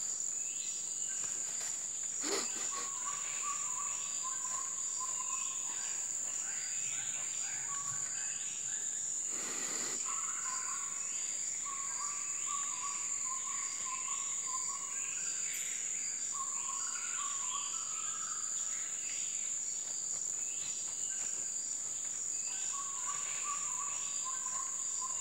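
Tropical forest ambience: a steady, high-pitched insect drone, with bursts of short, repeated bird chirps calling over it.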